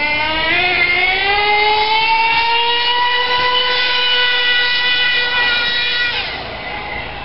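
Swift RC buggy's motor running hard at high revs: a high, buzzing tone that climbs in pitch over the first few seconds, holds there, then drops away about six seconds in.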